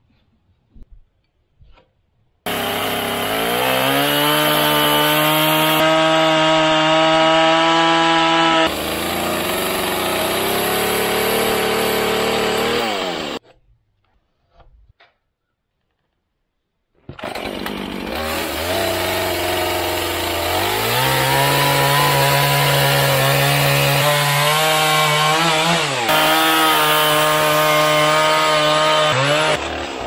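Gas chainsaw running at high revs while cutting through squared white pine beams, in two long cuts with a few seconds of silence between them. In the first cut the pitch drops partway through as the chain loads up in the wood; in the second the saw revs up before settling into the cut.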